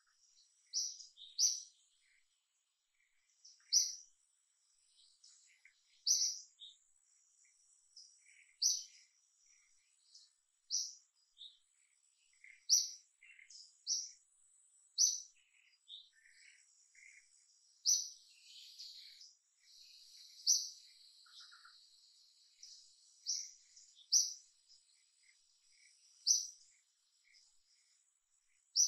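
A bird giving short, sharp, high chirps, one every one to three seconds, over a faint steady drone of forest insects that thickens briefly around the middle.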